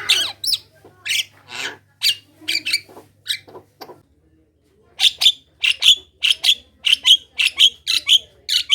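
Javan myna (jalak kebo) chattering: a varied string of harsh, squawky notes, a pause of about a second, then a fast run of repeated paired calls, about two pairs a second.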